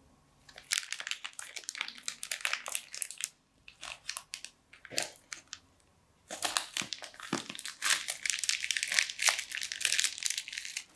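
Thin plastic zip-lock bag crinkling as it is handled and squeezed, in two long spells of dense crackling with a pause of a few seconds in the middle.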